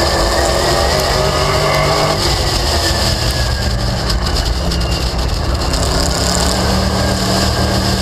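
Late Model stock car's V8 engine running hard from onboard the car, a loud continuous race engine note with the revs rising and falling as the car works through traffic on the oval.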